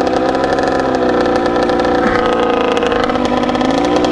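Kawasaki KX100 single-cylinder two-stroke dirt bike engine idling, its pitch sagging a little and picking up again near the end.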